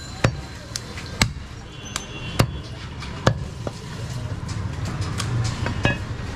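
Butcher's cleaver knocking on a wooden log chopping block while cutting mutton: sharp single knocks about once a second through the first half, then one more near the end.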